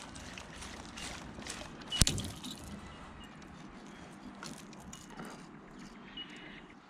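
Fishing line snapping under the rod's pull as a snagged lure is broken off: one sharp crack about two seconds in, among smaller clicks and knocks of rod handling.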